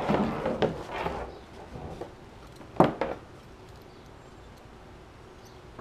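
Nylon strapping and a folding kayak seat being handled, rustling and scraping, then one sharp click a little under three seconds in, followed by a couple of small ticks.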